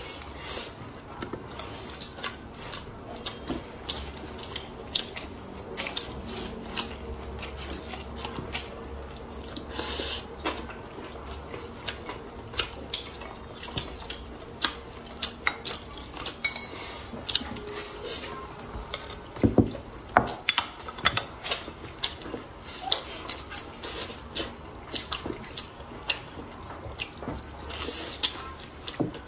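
Close-miked eating sounds: chewing and wet mouth sounds on soft rice-flour-coated steamed pork, with chopsticks clicking against a ceramic bowl, a dense scatter of short clicks. A single low thump about two-thirds of the way through, followed by a cluster of louder clicks.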